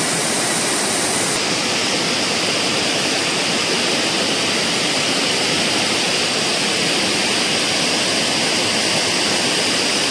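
Steady rush of a fast-flowing stream's water.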